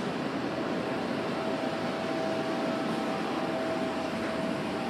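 Steady machine noise: an even hiss with a constant thin whine in it.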